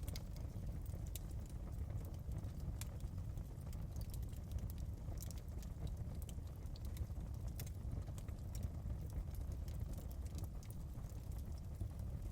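Wood fire burning in a fireplace: a steady low rumble of the flames with irregular sharp crackles and pops throughout.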